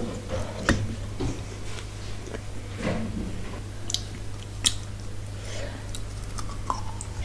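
Close-miked eating by hand: wet, soft bites and chewing with scattered sharp mouth clicks, over a steady low hum.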